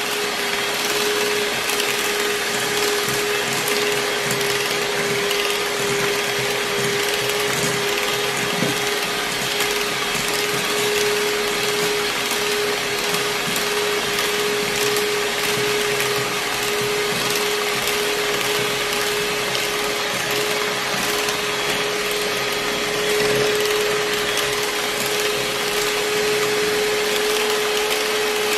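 Electric hand mixer running steadily with a constant motor whine, its wire beaters whipping a cream ice-cream mixture in a glass bowl.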